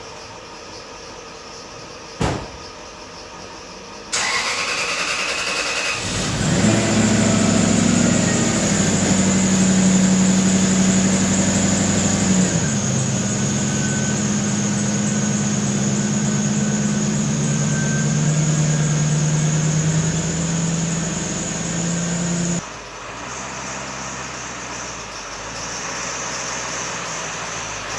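A vehicle engine is cranked by its starter for about two seconds, catches, and runs with its speed shifting now and then. It becomes noticeably quieter near the end. A single sharp click comes a couple of seconds before the cranking.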